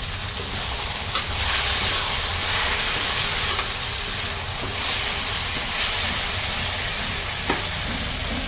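Grated potato, onion and hog plums sizzling in hot oil in a wok as a metal spoon stirs them. The hiss swells for a few seconds while they are turned, with two sharp knocks of the spoon against the pan, about a second in and near the end.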